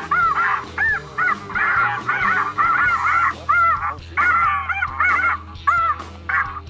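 A flock of snow geese calling: many short, high, arched honks that overlap continuously, with brief gaps near the middle and near the end. Background music plays underneath.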